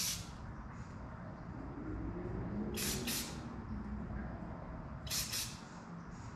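Aerosol spray paint can sprayed in short hissing bursts of about half a second each, three of them a couple of seconds apart, as paint is laid over a stencil.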